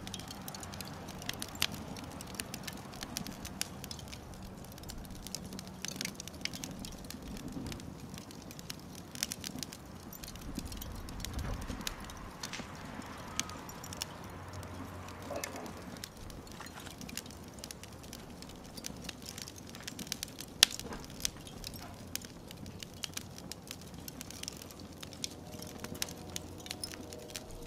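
Mesquite lump charcoal fire crackling on a grill, with irregular sharp pops and one louder pop about twenty seconds in.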